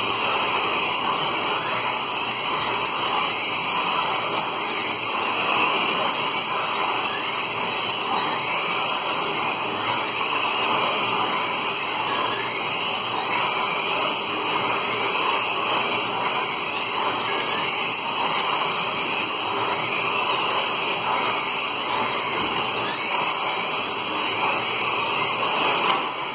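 Several 1/24-scale slot cars racing around a multi-lane track, their small electric motors whining continuously and rising and falling in pitch as they speed up and slow down.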